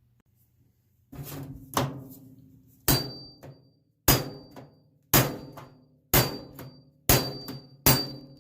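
Hammer striking a chisel against a microwave oven's sheet-metal case to knock out its security screws. About eight sharp hits, roughly one a second, each with a brief metallic ring.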